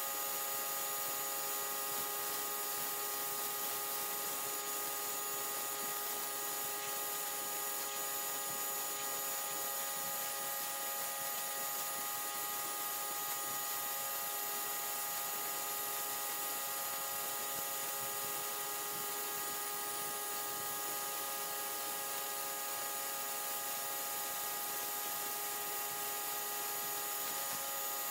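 Simoniz 1800 PSI electric pressure washer running continuously: the hiss of its water jet blasting dirt off concrete, with a steady hum of several fixed tones from the motor and pump.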